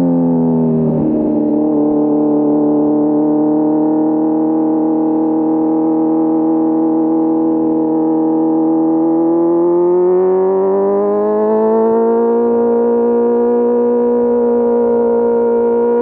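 Inline-four motorcycle engine heard onboard while riding. The revs fall off at the start, with a short rough patch about a second in, then hold a steady note for several seconds. They rise smoothly as the bike accelerates, then settle at a higher steady note near the end.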